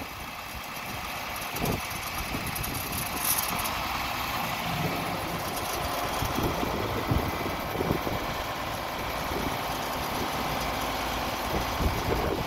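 John Deere 4020 tractor's engine running steadily at low speed.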